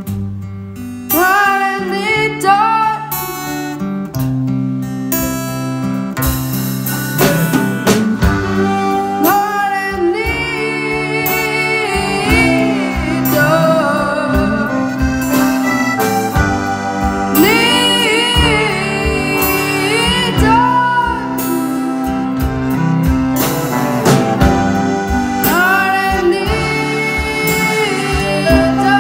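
Live band music: a boy singing lead over his strummed acoustic guitar, backed by a band with saxophones, trombone and drums.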